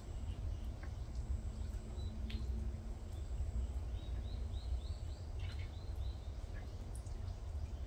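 A low steady rumble of outdoor background noise with small birds chirping now and then, including a quick run of about five short rising chirps about four seconds in.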